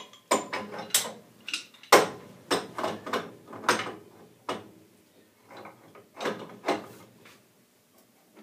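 Metal wrenches clanking and scraping against a furnace gas valve and its gas pipe as they are fitted on, with a dozen or so sharp knocks that die away near the end.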